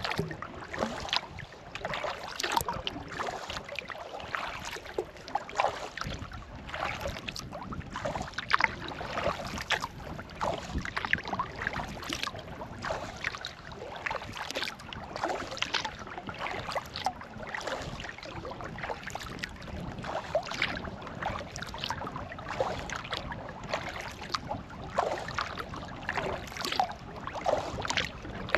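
Sea kayak paddle dipping into the water in repeated strokes, with splashing and water trickling and dripping off the blades.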